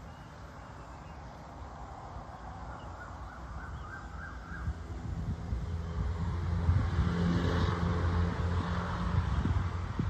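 Outdoor ambience: a bird gives a quick run of short calls a few seconds in, then a low engine hum grows steadily louder, like a motor vehicle approaching.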